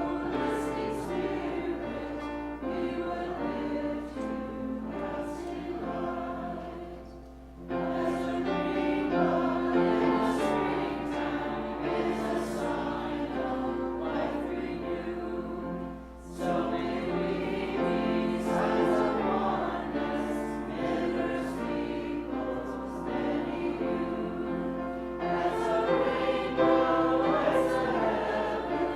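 A choir singing, the phrases held and broken by brief pauses about seven and sixteen seconds in.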